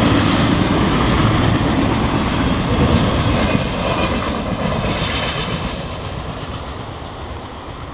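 Florida East Coast Railway freight train's double-stack container cars rolling past, a steady rumble of wheels on rail. It fades over the last few seconds as the end of the train goes by.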